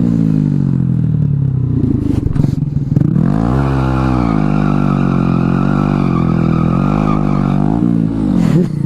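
Honda Grom motorcycle engine running. The revs fall away at first, rise sharply about three and a half seconds in and hold fairly steady with small rises and dips, then drop off near the end.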